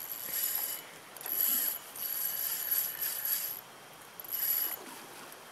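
Fishing reel ratcheting in several bursts of half a second to a second and a half with short pauses between them, while playing a hooked Chinook salmon.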